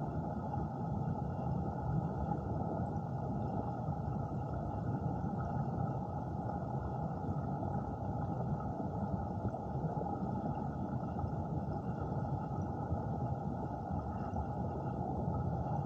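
Steady, muffled rush of flowing water recorded underwater, all low and dull with no distinct events.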